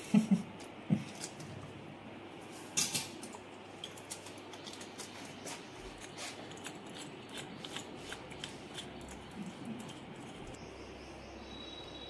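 Small clicks and knocks of a washing machine's plastic-and-metal tap adapter being handled and worked apart by hand, with a sharper clatter about three seconds in and light ticks after it.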